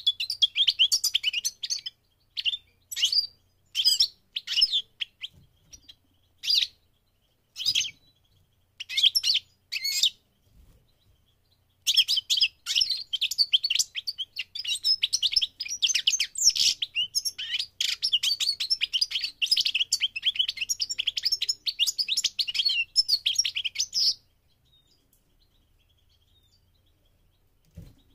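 European goldfinch singing: short bursts of high twittering with pauses between them, then a continuous run of rapid, liquid twittering song for about twelve seconds that stops abruptly.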